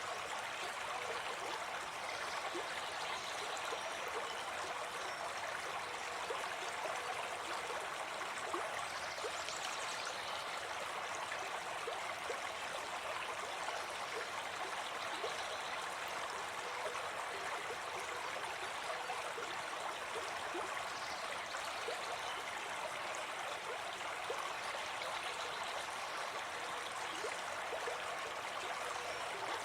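Forest brook running steadily, an even, unbroken rush of flowing water.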